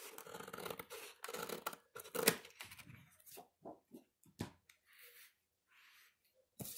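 Scissors cutting through a manila file folder along its crease: a run of scratchy cutting sounds for about two and a half seconds, ending in a sharp click. After that come a few light paper-handling sounds.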